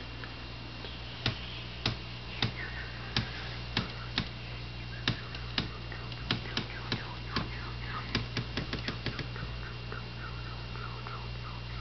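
Steady low hum of running aquarium equipment, under a series of sharp clicks or ticks. The clicks come about every half second and crowd closer together around eight seconds in. They are followed by fainter, quick chirp-like ticks.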